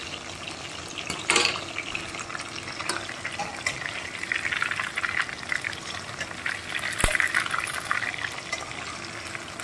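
Chicken wings deep-frying in hot oil in a steel wok: a steady sizzle and crackle, with a few sharp clicks.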